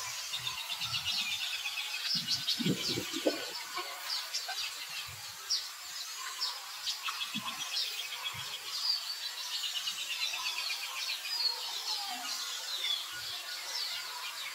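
Small birds chirping and giving fast, rapidly repeated trills, with a few soft low thuds and rustles mixed in.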